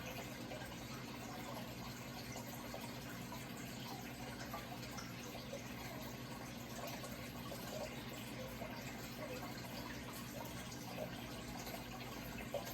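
Steady running, trickling water with small irregular splashes, over a steady low hum.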